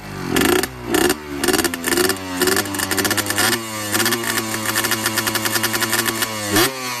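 Yamaha 125ZR's single-cylinder two-stroke engine revved through its barrel exhaust. It starts with a rapid series of throttle blips, each quickly rising and falling in pitch, then holds at steady revs for a few seconds, and drops and climbs again near the end.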